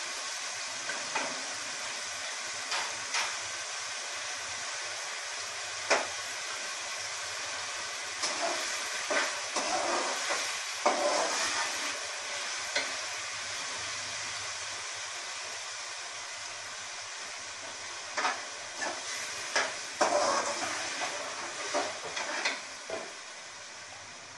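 Minced meat and tomatoes frying in oil in a metal pot, a steady sizzle, with a metal slotted spoon scraping and clinking against the pot as it is stirred, busiest around the middle and near the end.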